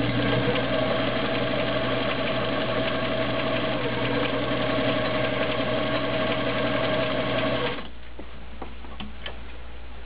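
All-metal Montgomery Ward Signature URR 292 sewing machine running steadily at an even speed, sewing a zigzag stitch, then stopping abruptly about eight seconds in. A few light clicks follow.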